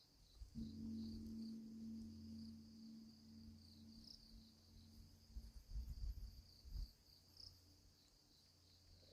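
Distant Buddhist temple bell struck once about half a second in, its low hum ringing on and slowly fading over several seconds, over steady chirping of crickets. A few soft low thumps come near the middle.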